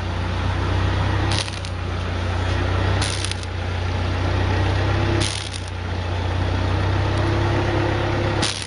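Engine of a wood gas generator running steadily with a low hum, with four short, high-pitched rushes of noise at irregular intervals of about two seconds.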